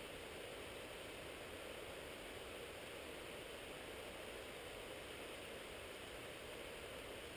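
Faint, steady rushing noise with no distinct events.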